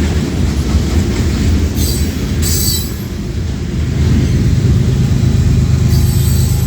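Freight cars of a long manifest train rolling past with a steady rumble, with brief high squeals from the wheels about two seconds in and again near the end.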